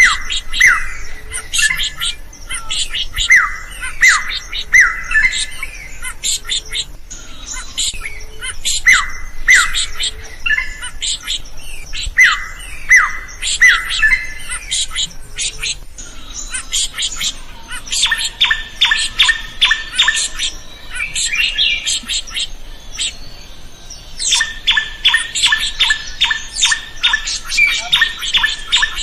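Drongo singing: loud, sharp down-slurred whistles mixed with harsh chattering notes, then in the second half fast runs of rapidly repeated notes.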